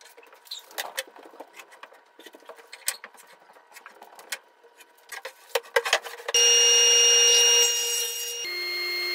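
Knocks and scrapes of a 2x8 board being handled on a workbench, then about six seconds in a radial arm saw starts up loud with a steady whine as it crosscuts the board to length. Its pitch steps down near the end.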